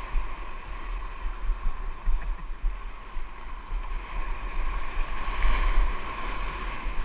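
Sea water washing around a kayak at sea, with wind rumbling on the microphone. The wash swells louder about five seconds in.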